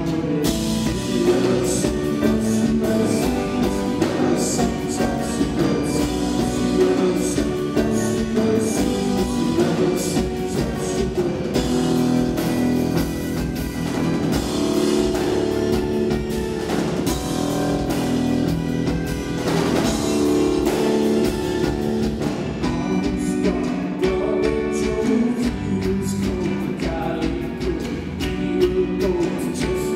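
Live rock band playing a song: a male voice singing over electric guitars, bass guitar and a drum kit, continuous throughout.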